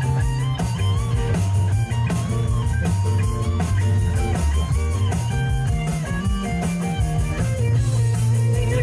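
Live blues-rock band playing an instrumental break: an electric guitar lead line bending notes up and down over bass and drums.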